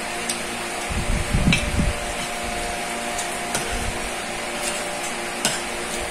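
Steady mechanical hum, like a room fan, with a few light clinks of a spoon against a plate and a brief low rumble about a second in.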